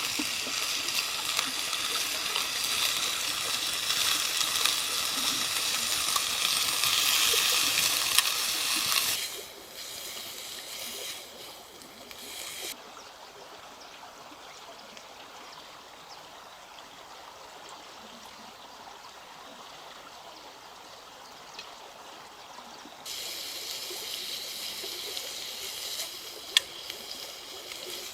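Steady hiss of water, rain or running water. It is loud and bright for the first nine seconds, drops to a quieter, duller hiss for the middle stretch, then comes back brighter a few seconds before the end.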